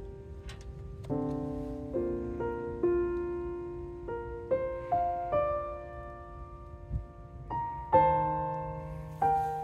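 Background piano music: a slow, gentle piece of single notes and chords, each struck and left to ring out.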